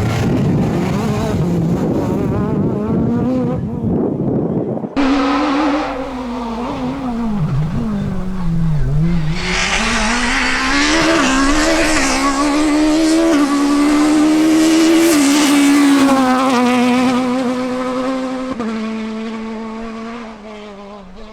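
Peugeot 306 Maxi Kit-Car rally car's engine at high revs, its pitch dropping sharply under braking and downshifts and then climbing again through the gears. In the middle stretch a loud hiss of tyre noise rides over the engine, and near the end the engine fades as the car goes away. The sound changes abruptly about five seconds in.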